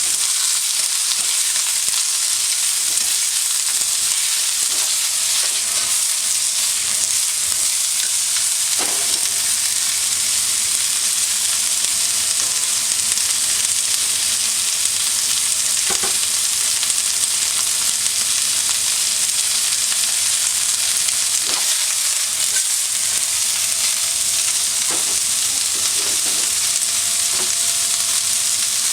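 Food sizzling as it is stir-fried in a hand-hammered iron wok, a steady hiss, with a few faint knocks of the cooking utensil against the pan.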